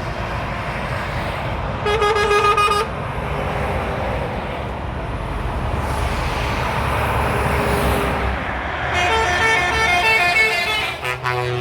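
Truck horns sounding over steady motorway traffic noise: one short blast about two seconds in, then near the end a longer run of rapid pulsed toots, about four a second.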